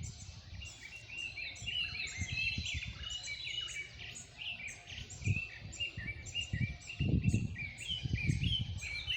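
Several birds singing together in the morning chorus, a dense run of short, quick chirps and repeated whistled notes from more than one bird. A low rumble on the microphone comes in about seven seconds in.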